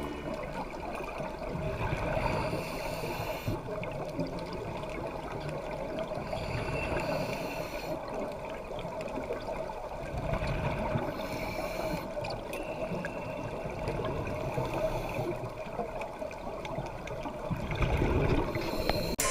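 Underwater sound from a scuba dive: a steady watery hiss, with bursts of bubbling gurgle from a diver's regulator exhaust that come back every few seconds with the breathing.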